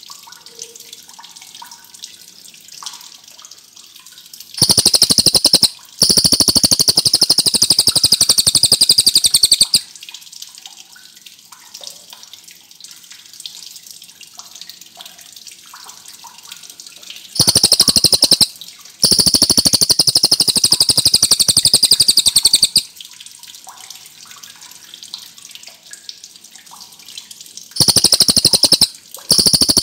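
Cililin (rufous-tailed shama) singing long rolling trills, each a very rapid, high, loud roll lasting about five seconds. The first starts about five seconds in, the second at about seventeen seconds and the third near the end. Between the rolls it gives soft, scattered chirping notes.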